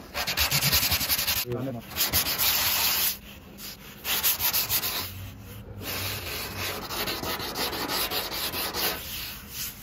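Hand-sanding with wet-and-dry paper on a block over the filled fibreglass repair on an epoxy windsurf board's nose: scratchy rasping strokes. It comes in a few separate bursts at first, then faster back-and-forth strokes run on through the second half.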